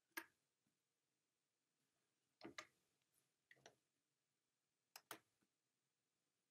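Faint clicks of a computer mouse and keyboard in use: one click near the start, then three close pairs of clicks about a second apart, with near silence between.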